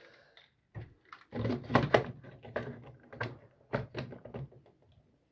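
A run of short plastic clicks and knocks from a new residual-current device (differential breaker) being handled and fitted into the distribution board.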